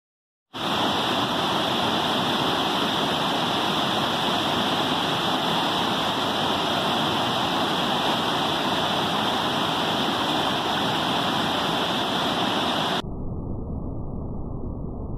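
Water rushing steadily over a tiered cascade waterfall. It starts abruptly about half a second in, and near the end it cuts to a quieter, duller rush.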